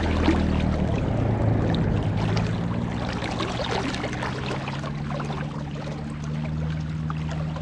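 Floodwater overflowing a reservoir and pouring out, a loud continuous rush with a steady low hum beneath it.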